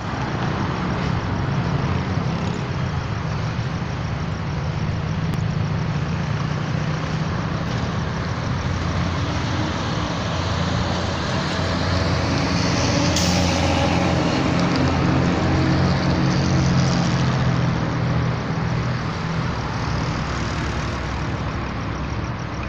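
Road traffic running alongside the tracks: diesel trucks and cars with a steady low engine hum, and a short air-brake hiss a little past halfway.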